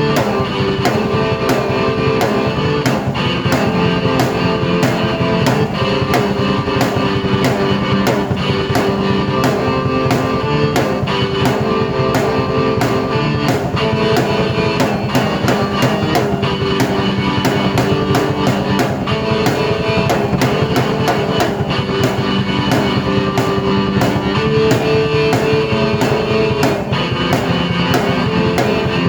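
Drum kit and keyboard played at the same time: a steady drum beat under held keyboard chords.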